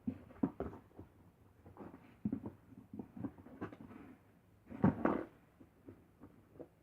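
Irregular knocks and rustles of small containers and paint bottles being handled on a tabletop, with a louder clatter about five seconds in.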